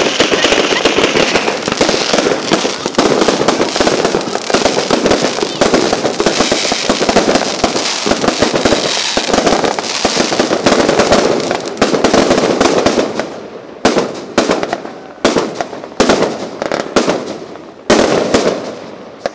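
Fireworks display: a dense, continuous barrage of bangs and crackling, thinning about two-thirds in to single loud bursts roughly a second apart, each fading off.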